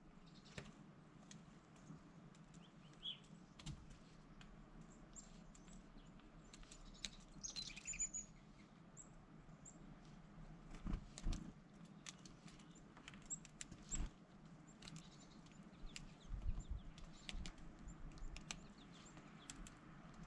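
Faint, scattered small taps and flutters from birds coming to a hand for food, with a few brief high bird chirps, the clearest about a third of the way in, over a low steady background.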